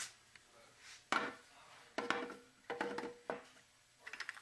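6R80 transmission's 2-6 (C) clutch assembly knocking and clinking against the aluminium transmission case as it is fitted by hand: about four separate knocks, two of them ringing briefly like metal.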